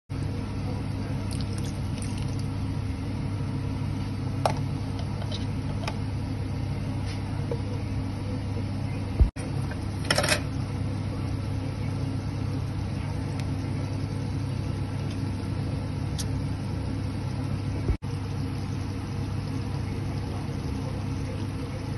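A steady low mechanical hum, like a motor running, with a few faint clicks and a short clatter about ten seconds in. The sound drops out for an instant twice.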